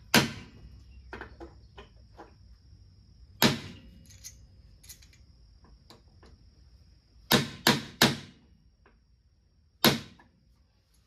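Hammer blows on a steel punch, driving out the centre pin of a pot-metal rivet in a car door's lock-actuator bracket. There are six sharp metallic strikes, spaced irregularly, with a quick run of three about two thirds of the way through.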